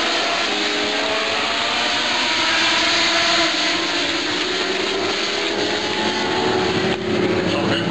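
A pack of INEX Legend race cars running at speed, their Yamaha motorcycle engines making several overlapping notes that rise and fall as the cars circle the track.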